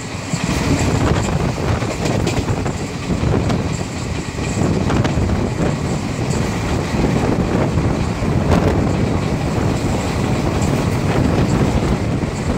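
Passenger train running at speed: a steady, loud rumble of wheels on the rails, with a few sharp clicks from the track.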